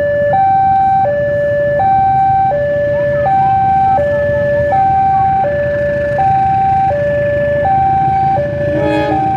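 Electronic two-tone warning alarm alternating evenly between a higher and a lower note, each held about three-quarters of a second, over the steady low rumble of a diesel-electric locomotive pulling out. A brief sharp sound cuts in just before the end.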